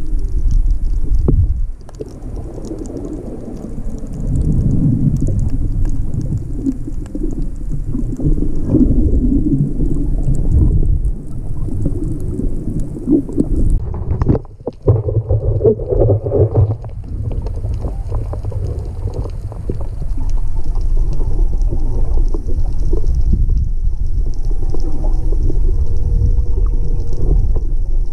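Underwater sound through a GoPro's housing: a steady low rumble of moving water, with humpback whale song in the background as faint, drawn-out moans that rise and fall, mostly in the second half. The rumble cuts out briefly about halfway.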